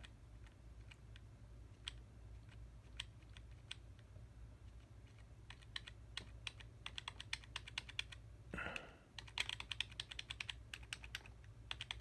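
Computer keyboard keys being pressed: scattered single clicks at first, then quick runs of key presses in the second half, with a brief rustle a little past the middle, over a low steady hum.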